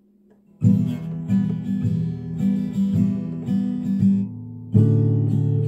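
Acoustic guitar strummed, starting about half a second in with a run of chord strokes, then changing to a louder, fuller chord near the end.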